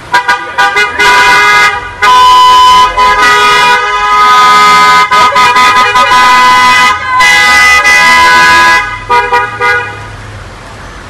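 Car horns honking as cars drive slowly past: a run of short toots, then long held blasts, then more short toots. The horns stop about a second before the end.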